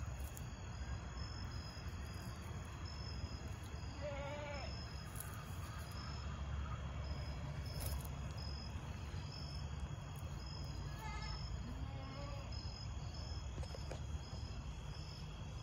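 Insects chirping in a steady, regular high-pitched pattern over a low background rumble, with a few faint goat bleats about four seconds and eleven seconds in.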